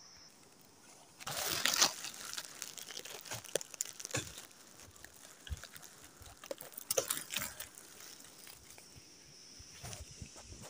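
Dry rice straw and leaf litter rustling and crunching in irregular bursts, loudest about a second and a half in. A steady high buzz can be heard at the start and again near the end.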